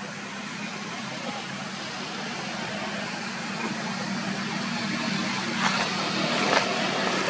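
Steady outdoor background noise with a low hum, slowly growing louder. Near the end come crackling rustles of dry leaves as macaques move over the leaf litter.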